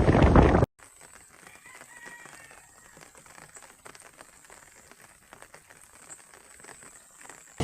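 Loud outdoor noise that cuts off abruptly under a second in, leaving a quiet background with faint ticks and one faint bird call about two seconds in.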